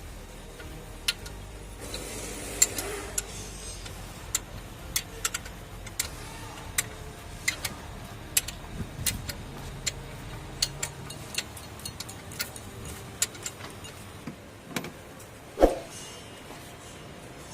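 Scattered sharp metallic clicks and clinks of hand tools working on a car's alternator, about one a second, over a low steady hum that stops about eleven seconds in; one louder clank with a short ring near the end.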